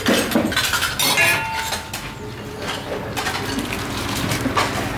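Metal ladle and dishes clinking: a stainless ladle knocks against the broth pot and ceramic bowls in several separate clinks, one ringing briefly.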